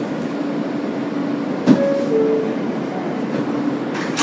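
Steady hum inside a stopped R143 subway car as its doors close: a knock, then a two-note descending door chime about two seconds in, and the doors thudding shut near the end.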